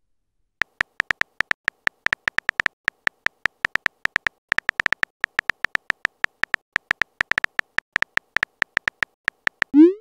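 Rapid, irregular key-tap clicks of a texting app's on-screen keyboard as a message is typed out, each tap a short click with a high beep in it. A quick rising swoop at the very end as the message is sent.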